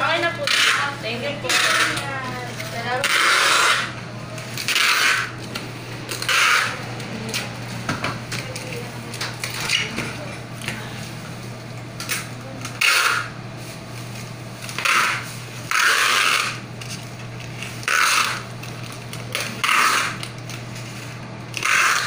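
Packing tape being pulled off the roll in short, noisy strips, again and again, about one pull every second or two, as a plastic box is taped shut. A steady low hum runs underneath.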